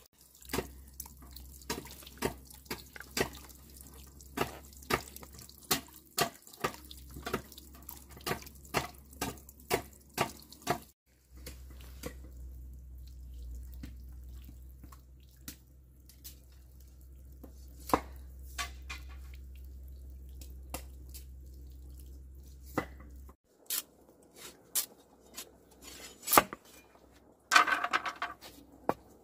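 A run of sharp, evenly paced taps, about two or three a second, for roughly the first ten seconds. Then a low steady hum with only occasional taps, and a few louder knocks and a short rustling burst near the end.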